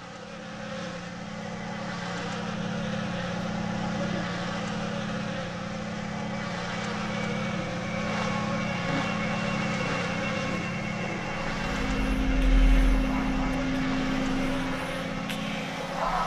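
Low, steady droning score that swells in loudness, with a deep rumble building about three-quarters of the way through.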